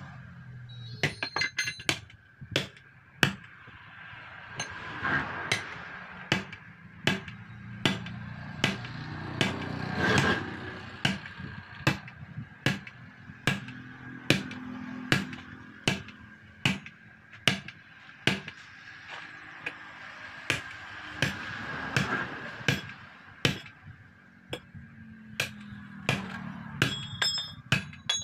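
Repeated hammer blows on the steel rim of a truck wheel during tyre fitting, struck in a steady rhythm about one and a half a second. There are short bursts of metallic clinking about a second in and again near the end.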